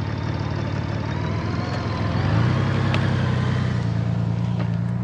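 Motorcycle engine running steadily at low revs; about halfway through its pitch steps up a little and holds there.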